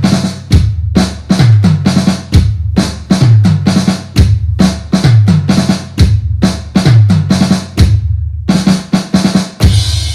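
Loud drum-kit music: a fast run of kick, snare and tom hits, the low hits dropping in pitch, with a short break near the end followed by a final crash that rings out.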